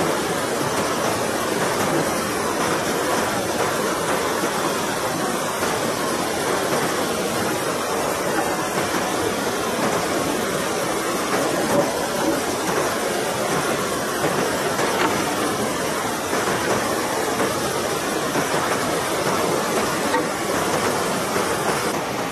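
River water rushing steadily over rocks in shallow rapids.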